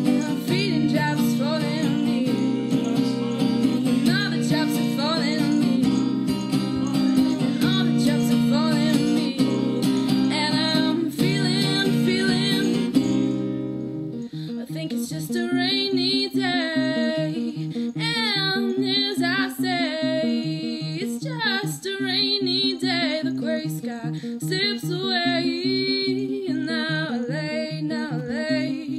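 A song with singing over plucked guitar. About halfway through the music changes to a thinner part with a sliding vocal line over plucked notes.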